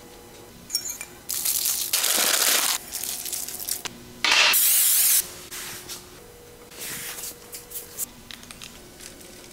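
Aerosol nonstick cooking spray hissing in short bursts onto a wire cooling rack. The loudest burst comes a little past four seconds in, with quieter handling noises in between.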